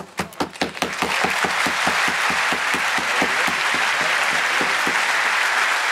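Audience applauding: a few separate claps break out suddenly, and within about a second they swell into steady applause from many hands.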